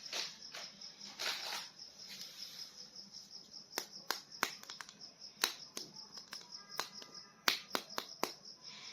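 Quiet, scattered clicks and short rustles of plastic toy figures and packaging being handled, with a faint steady high-pitched whine behind them.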